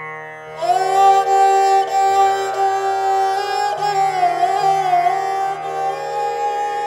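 Instrumental background music in an Indian classical style: a steady drone, with a melody that comes in about half a second in and slides up and down in pitch over repeating low notes.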